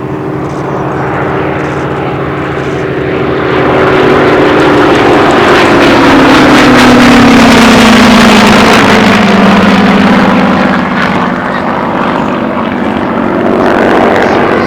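The Rolls-Royce Merlin V12 piston engine of a Second World War fighter making a low flypast. It grows louder to a peak about halfway through, and its note drops in pitch as the aircraft passes, then carries on at the lower pitch as it goes away.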